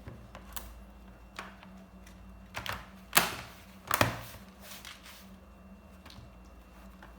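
Hard plastic clicks and knocks from a laptop being reassembled by hand, its battery and back cover going back in place. The clicks are irregular, with two louder knocks about three and four seconds in.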